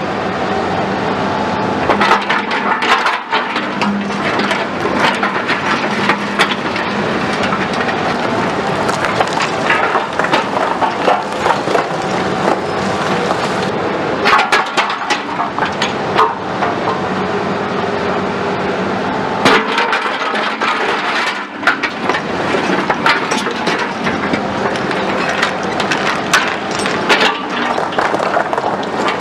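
Heavy machinery clattering: many sharp knocks and cracks of metal parts over a steady engine drone.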